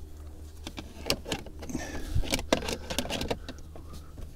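Plastic centre-console trim panel around the gear lever being handled and pressed into place: scattered clicks, taps and rustles.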